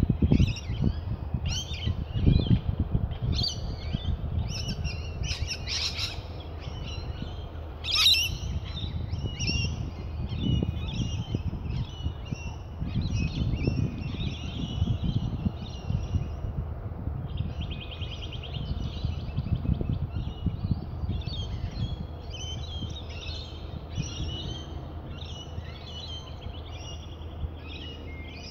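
Several wild birds calling and chirping in many short overlapping phrases, with a rapid buzzy trill near the middle, over an uneven low rumble.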